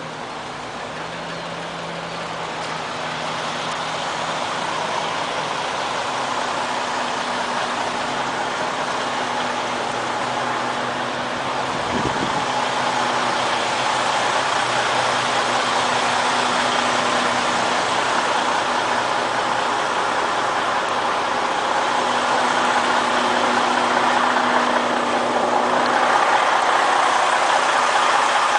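A John Deere 9560RT track tractor's diesel engine idling steadily, growing gradually louder, with one brief knock about twelve seconds in.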